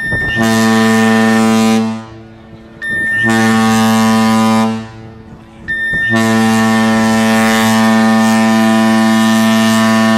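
Carnival Glory's ship horn sounding the muster-drill alarm: two short blasts, each about a second and a half, then a long, unbroken blast beginning about six seconds in. It is loud and deep, with a steady pitch.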